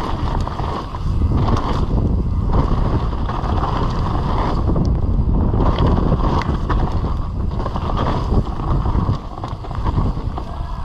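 Wind buffeting the microphone over the rumble of a mountain bike rolling down a dirt trail, with scattered knocks and rattles.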